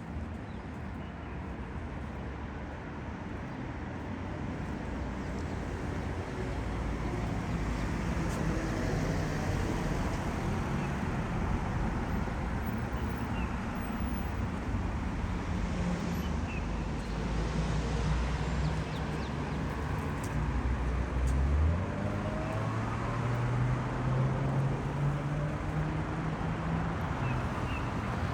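City road traffic: a steady wash of car engines and tyres that grows louder over the first several seconds. Near the end, one vehicle's engine note climbs slowly in pitch as it pulls away.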